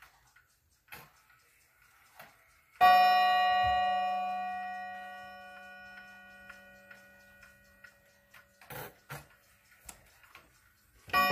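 Linden 31-day wall clock ticking faintly, then its movement strikes once on the gong about three seconds in, a single ringing note that fades slowly over several seconds as the minute hand is turned past the half hour. A few clicks from the movement follow, and the next strike begins at the very end as the hand reaches the hour.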